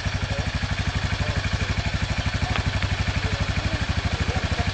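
ATV engine idling, a steady low putter of about thirteen beats a second.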